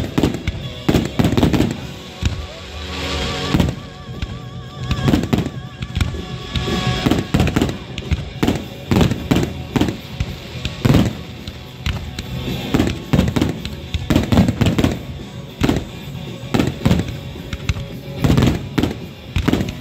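Fireworks display: aerial shells launching and bursting in rapid succession, a dense run of sharp bangs several a second with crackle between them.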